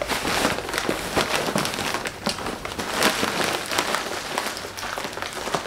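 Rustling and crinkling of a non-woven tote bag and the cardboard packages stuffed in it as they are carried and clutched, a dense run of irregular crackly scrapes.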